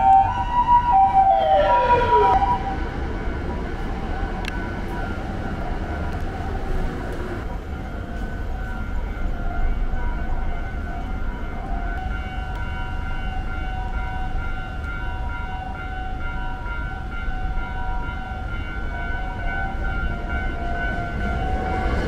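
Japanese ambulance's two-tone electronic siren, loud as it passes, its alternating notes sliding down in pitch about a second in. It then keeps sounding more quietly over steady traffic noise.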